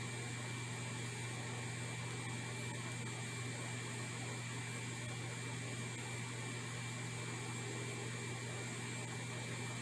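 Steady low hum with even hiss and a faint thin high tone, unchanging throughout, with no clicks or other events.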